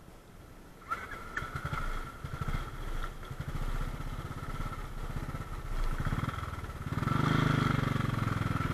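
Motorcycle engine running with a steady firing beat that comes in about a second in and grows louder about seven seconds in.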